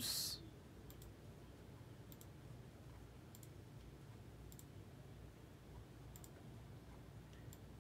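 Six faint computer-mouse clicks about a second apart over a quiet room background.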